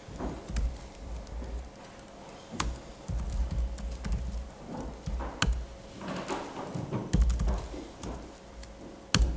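Laptop keyboard typing: irregular keystrokes with a few sharper clicks, over some low thuds.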